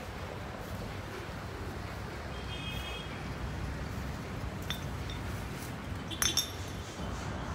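Outdoor ambience with a steady low rumble, broken by a few sharp metallic clinks; the loudest is a quick cluster of clinks about six seconds in.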